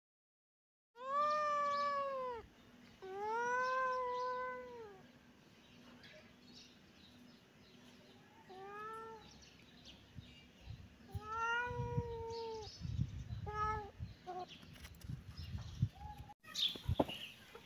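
A cat meowing repeatedly: two long, drawn-out meows starting about a second in, then a short one, another long one, and a few quick short meows, with some low thumps in between.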